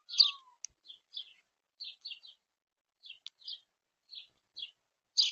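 Small bird chirping: about a dozen short, high chirps, roughly two a second, with a lower falling note near the start.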